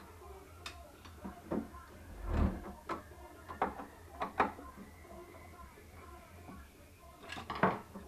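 Short plastic clicks and knocks from a screwdriver prying at the clips of a Jura E8 coffee machine's plastic housing panels, with a quick cluster of clicks near the end as a panel comes free.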